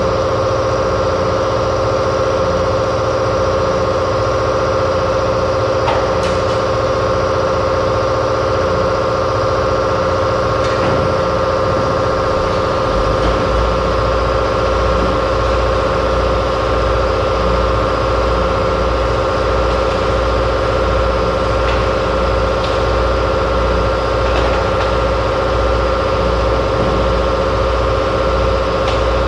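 A machine motor runs steadily with a constant drone. A lower pulsing throb joins in a little under halfway through.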